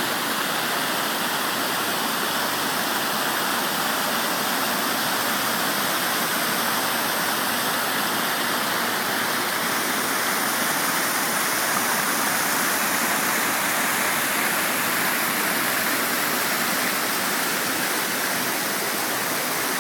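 River water rushing steadily, a continuous even roar of flowing water.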